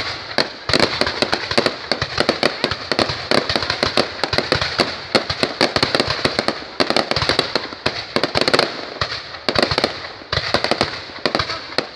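Fireworks going off in a dense, continuous string of rapid cracks and pops, many a second, with no break.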